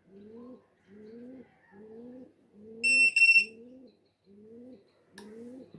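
Pigeon cooing in a steady rhythm, about one rising coo a second. About three seconds in come two short, high-pitched electronic beeps, louder than the cooing.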